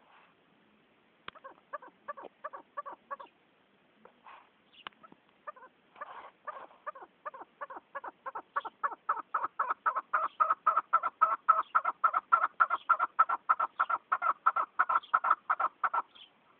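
Chukar partridge calling: a short run of clucking notes, then a long fast series of 'chuck' notes, about five a second, that builds in loudness and stops near the end.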